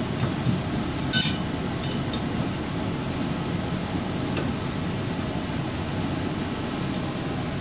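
Pliers clicking lightly on metal as a cotter pin is bent over on a castle nut at a wheel hub: a few scattered clinks, the clearest about a second in. Under them runs a steady low rumble.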